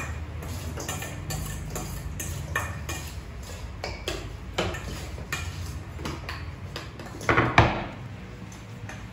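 Kitchen prep clatter: scattered knife taps on wooden cutting boards and clinks of stainless steel bowls and plates, with a louder clatter of knocks near the end.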